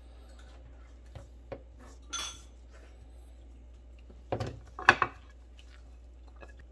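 Kitchen knife and ceramic plate sounds while plating sliced raw fish: a few light taps of the knife on a plastic cutting board and a short scrape near two seconds in. About four to five seconds in comes a cluster of sharper clinks and knocks, the loudest part, as the ceramic plate is handled and shifted.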